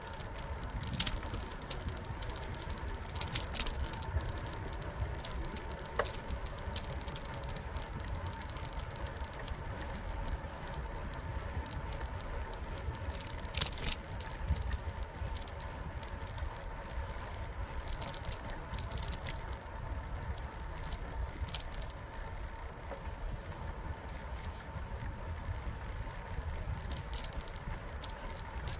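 Bicycle riding along an asphalt path, heard from a handlebar-mounted camera: a steady low rumble of tyres and wind, with scattered short rattles and clicks from the bike over the cracked pavement and a faint steady whine underneath.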